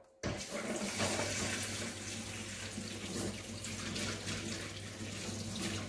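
Kitchen tap running steadily into the sink, starting suddenly just after the start, with a low steady hum underneath from about a second in.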